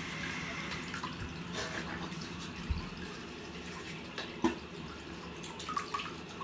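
Bathroom tap running steadily into the sink, with a few small knocks.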